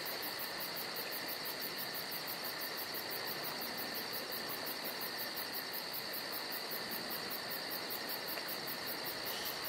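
Crickets chirping in a steady night chorus, with a fast, even pulse running throughout.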